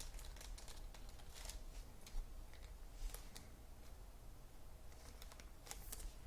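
Trading cards being handled: faint rustling and light scattered clicks, with a couple of slightly louder clicks about two and three seconds in.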